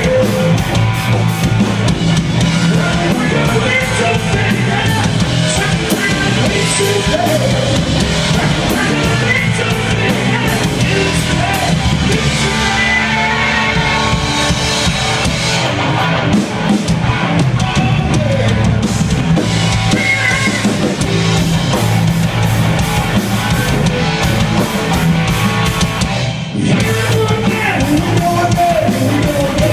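Live rock band playing loudly: electric guitars, bass guitar and a Ludwig drum kit keeping a steady beat, with a man singing lead vocals.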